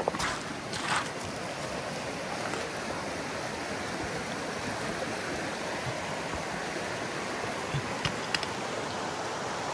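Shallow river running fast over a stony bed: a steady rush of water. A few brief clicks stand out shortly after the start and about eight seconds in.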